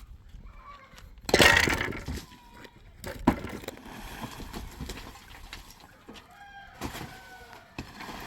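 A loud crash of something breaking or falling about a second in, followed by a sharp knock and a few lighter knocks.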